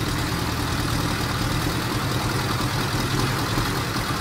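Volkswagen Brasília's air-cooled flat-four engine idling steadily.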